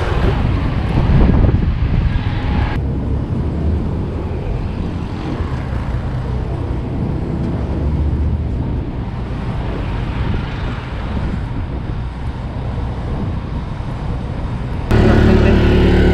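Steady road traffic and wind rumble on a moving bike-mounted microphone; about three seconds in the higher part of the noise drops away abruptly. Near the end a small engine comes in suddenly, running loud and steady close by.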